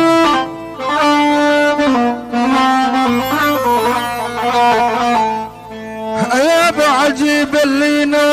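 Instrumental music for an Iraqi ataba song: a plucked string instrument with held melodic notes, their pitch bending and wavering more from about six seconds in.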